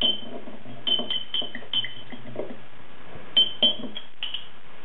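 Metal spoon clinking against the inside of a glass jam jar while stirring weedkiller into hot water to dissolve it. Light clinks, each with a short glassy ring, come in a quick run over the first two seconds, pause, then come again near the end.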